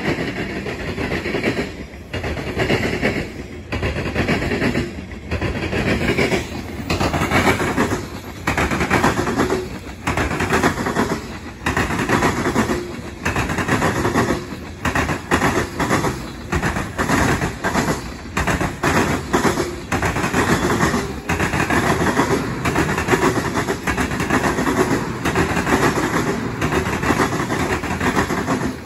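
Freight train of covered hopper cars rolling past close by: steel wheels clattering in a quick, uneven clickety-clack over the rail joints and crossing track.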